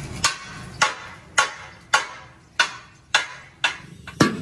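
Sledgehammer blows on a steel sheet, about eight evenly spaced strikes roughly twice a second, each ringing briefly.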